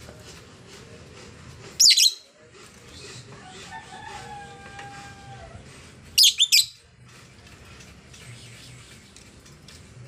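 Female blue-mutation masked lovebird giving shrill, harsh calls in two bursts: a short one about two seconds in and a quick run of three about six seconds in. A fainter drawn-out whistle sounds between them.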